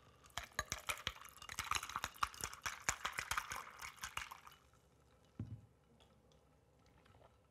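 Iced tea poured from a glass pitcher into a glass full of ice cubes: splashing liquid with many sharp clinks of ice against the glass, stopping about four and a half seconds in. A single soft thump follows about a second later.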